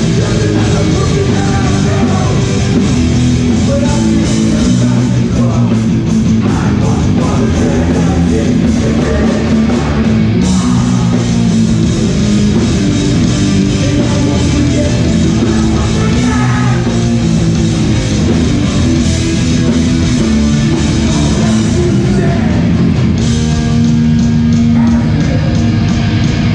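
Live hardcore punk band playing loud: distorted electric guitars, bass and drums, with shouted vocals.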